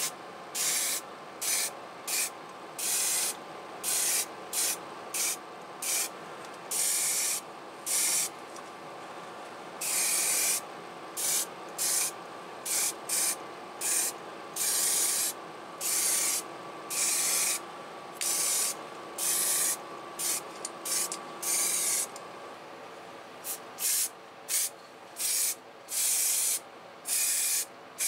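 Aerosol spray paint hissing in many short, separate bursts, each lasting from a fraction of a second to about a second and a half, as a coat of primer and then heat-resistant paint goes on. A steady hum runs underneath.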